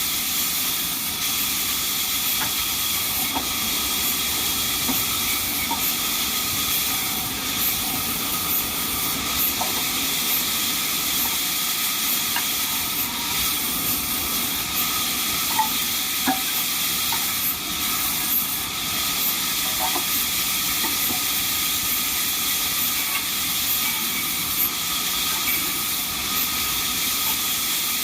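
Band sawmill machinery running: a steady high hiss with several faint held tones and scattered small ticks.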